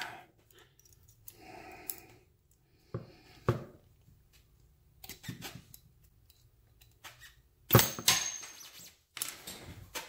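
Small metal clicks and scrapes as a pin tool is worked into the side of a Master Lock laminated padlock to free its core. About three-quarters of the way through comes one loud sharp knock followed by a short clatter.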